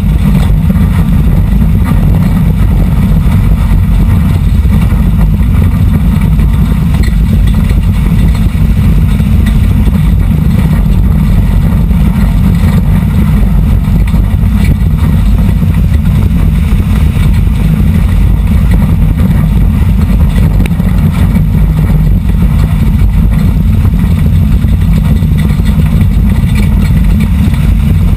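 Four-cylinder dirt-track race car engine running hard under racing load, heard from inside the cabin. It is loud and steady, a continuous low drone that does not let up through the lap.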